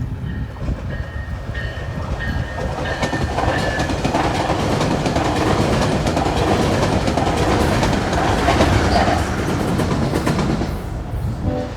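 A Siemens SC-44 Charger push-pull passenger train passes close by, its wheels clicking over the rails. The rumble builds over the first few seconds, is loudest in the middle, and dies away after about ten seconds.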